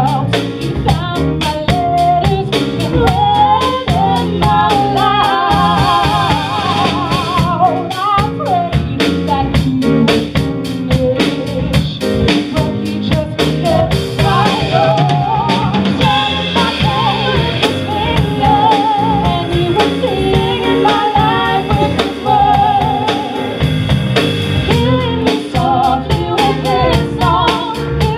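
Live female vocals sung into microphones, backed by a band on drum kit and piano. The singing wavers with vibrato over a steady drum beat.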